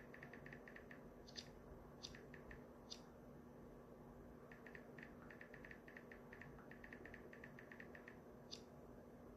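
Near silence with faint runs of quick light clicks, several a second, broken by a few sharper single ticks.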